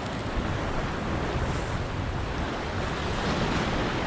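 Ocean surf washing over jetty rocks, a steady rushing wash with wind buffeting the microphone.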